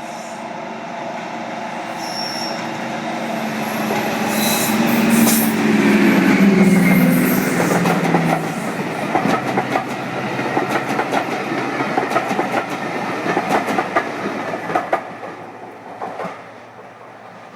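A diesel-hauled train passing: the locomotive's engine hum grows louder and drops in pitch as it goes by, followed by a long run of wheel clicks over the rail joints as the coaches pass, fading away near the end.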